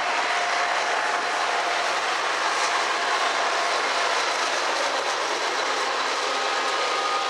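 Freight train passing close by: steel wheels rolling on the rails as the last covered hopper cars and the trailing Kansas City Southern diesel locomotives go by. A steady, loud rolling noise with a faint thin whine over it.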